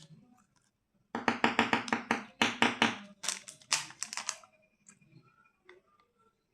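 Candy packaging being opened by hand: a quick run of loud, sharp crackles lasting about three seconds, then a few faint ticks.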